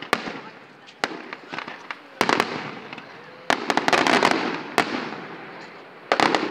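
Aerial firework shells bursting in a series of sharp bangs. About halfway through, a dense run of quick crackling cracks comes as the glittering stars go off, and another cluster of bangs comes near the end.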